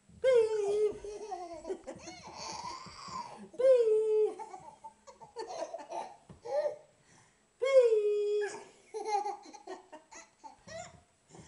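Toddler laughing in high-pitched peals that fall in pitch. The three loudest come near the start, about four seconds in and about eight seconds in, with shorter giggles between.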